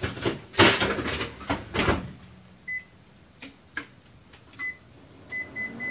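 Clattering and handling noise for about two seconds, then the short electronic button beeps of a kitchen cooking appliance's control panel, a single beep, another, then a quick run of beeps near the end, as a cooking time is set in 5-minute steps.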